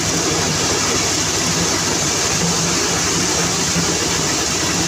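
Diesel-driven mobile corn sheller running under load, shelling husked corn: a steady, loud mechanical din of the threshing drum and cobs, with a low engine hum beneath.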